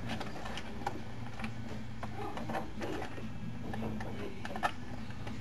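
Light clicks and short scrapes of sensor wires being fitted into a small plastic terminal connector, over a steady low hum.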